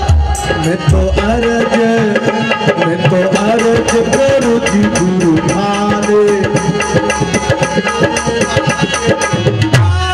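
Live devotional bhajan music: rapid hand-drum strokes, several a second, under a sung melody with accompanying instruments.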